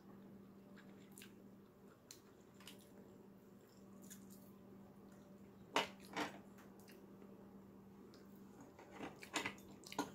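Boiled crab being shelled and picked apart by hand, quiet and wet, with a few short sharp cracks and clicks of shell about six seconds in and again near the end, over a faint steady hum.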